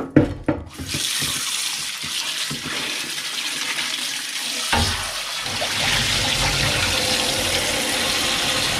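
Kitchen tap running onto parboiled chicken pieces in a frying pan in a stainless-steel sink, rinsing off the scum and fat. A few knocks come at the start, and the splash grows fuller about five seconds in.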